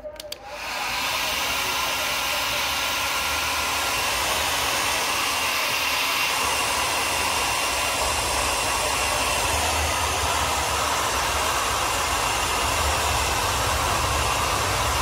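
Handheld electric hair dryer blowing air onto charcoal to fan the coals alight: a steady rush of air with a faint high whine, coming on about half a second in and holding level.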